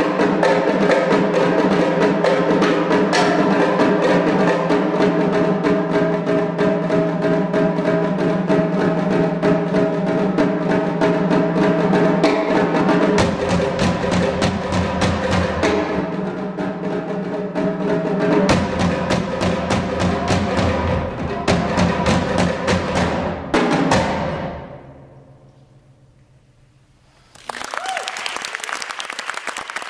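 A multipercussion setup of drums and toms played in a fast, dense stream of strokes with ringing tones. The playing stops about three-quarters of the way through and the ring dies away. Audience applause breaks out near the end.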